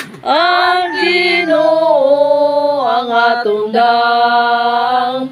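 A small group of women singing a religious hymn together, voices in unison with long held notes.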